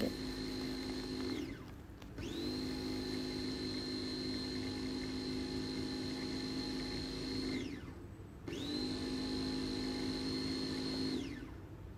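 Philips electric mini chopper's motor whirring steadily as it grinds dry chocolate biscuits to powder, run in three bursts: it winds down and starts up again about two seconds in and again near eight seconds, then winds down to a stop near the end.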